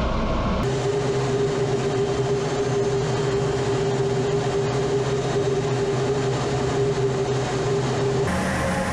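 Steady cockpit noise of a Su-25 attack jet in flight: its twin turbojets and rushing air, with a steady hum tone. The sound changes abruptly just under a second in and again near the end.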